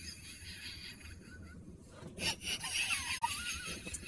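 Breathless, near-silent laughter: quiet wheezy gasps with a few faint squeaks, loudest a little past the middle.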